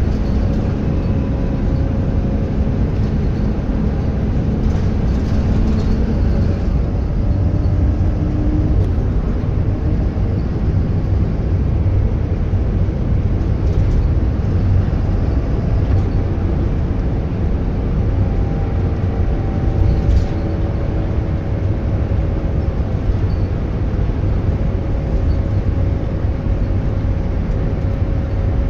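Diesel bus engine running under way: a steady deep rumble with faint whining tones that drift slightly in pitch, typical of its turbocharger whistle.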